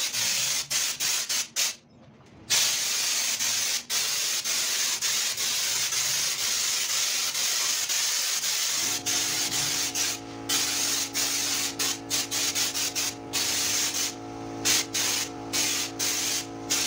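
Steady spraying hiss of compressed air, cut by short pauses as the flow is stopped and restarted. About nine seconds in, a steady hum joins it.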